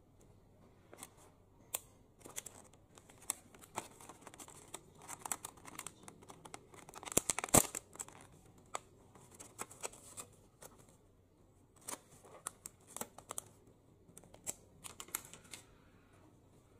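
Clear plastic clamshell food container crinkling and crackling as it is handled and its lid pried open, in scattered sharp clicks with the loudest cluster about halfway through.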